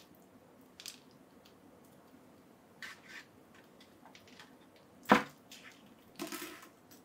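Small clicks and taps of action-figure parts and accessories being handled, with one sharp, loud click just after five seconds and a brief rustle a second later.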